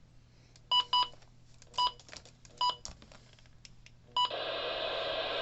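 Midland HH54VP2 weather radio beeping five times, short electronic key beeps with faint button clicks between them. About four seconds in, a steady hiss of radio static comes on.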